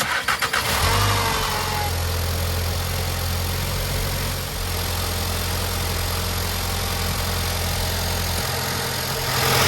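A 2016 Volkswagen Jetta's 1.8-litre four-cylinder engine cranks briefly on its newly fitted ACDelco battery, catches within about a second and flares up, then settles into a steady idle. It starts readily, a sign that the new battery is working.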